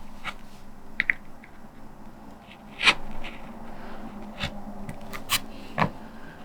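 A linoleum block being carved with a hand lino cutter: short, uneven scraping strokes and sharp clicks, the loudest about three seconds in.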